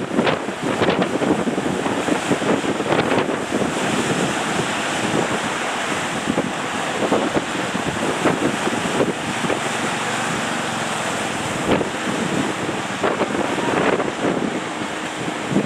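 Surf breaking at a river-mouth sandbar, heard as a steady wash of waves with wind gusting on the microphone.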